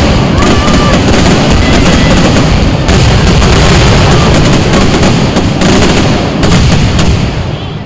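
A rapid barrage of aerial fireworks: dense, overlapping bangs in quick succession, very loud, tailing off near the end.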